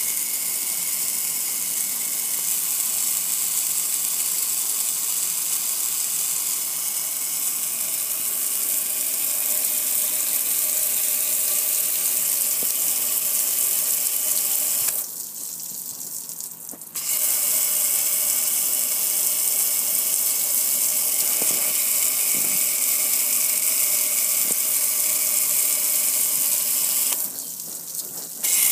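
A hose sprayer blasting water onto a metal gas grill and the concrete under it, a steady hard hiss of spray and splashing. It stops for about two seconds around the middle and again briefly near the end as the spray is shut off.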